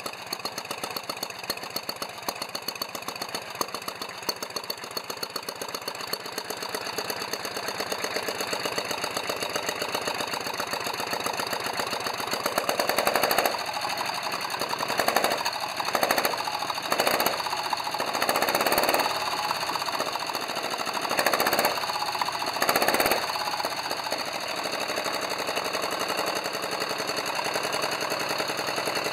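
Mazda CT's air-cooled 1147 cc V-twin engine running on a stand through short stub exhaust pipes, with a rapid, even firing beat. Between about 13 and 23 seconds in it is revved in about seven short blips, then settles back to its steady beat.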